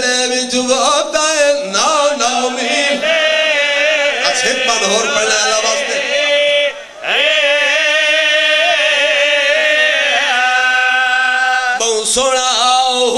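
A man's voice chanting a mourning lament in long, drawn-out, wavering notes, breaking off briefly about seven seconds in before holding one long note.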